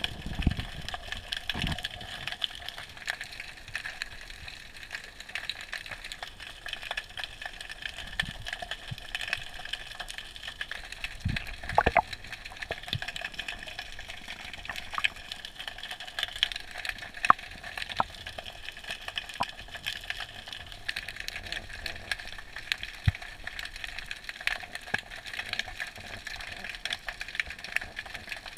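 Underwater ambience heard through a camera housing: a steady hiss full of fine crackling and scattered sharp clicks. A few dull knocks come near the start and about twelve seconds in.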